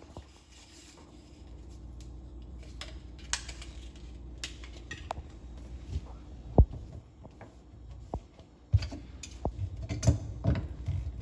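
Hands working on plastic drain fittings under a kitchen sink: scattered clicks and knocks, one sharp knock about midway and quicker clatter near the end, over a low steady hum.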